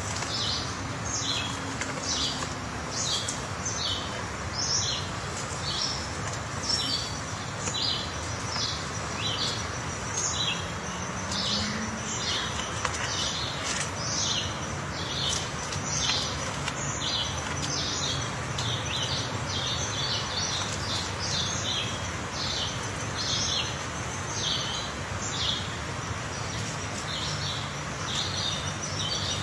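Birds chirping: many short, high chirps, about two a second and often overlapping, over a steady background hiss.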